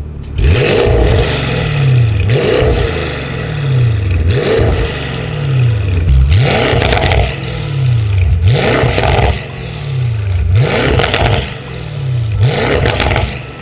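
Porsche Panamera GTS Sport Turismo's tuned 4.0-litre twin-turbo V8 revved in seven sharp blips, about one every two seconds, each rising fast and falling back to idle. It runs through a catless Fi valvetronic exhaust with its valves closed at first and open by the end.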